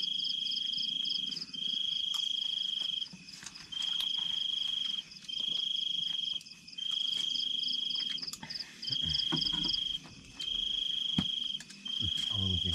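A cricket trilling: one steady high note repeated in trills of a little over a second each, broken by short gaps. A few faint low knocks come near the end.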